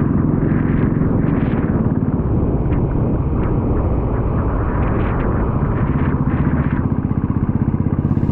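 Motorcycle engine running steadily while riding, heard through the action camera's built-in microphone without an external mic.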